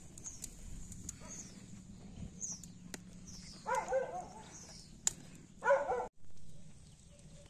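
A dog barks twice, about four and six seconds in, over small birds chirping and a few sharp crackles from a wood fire burning in a metal brazier.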